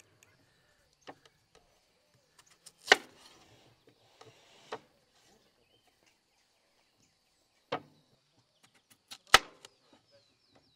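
A large kitchen knife cutting raw potatoes in half and striking a wooden cutting board: about five sharp, separate knocks, one every couple of seconds.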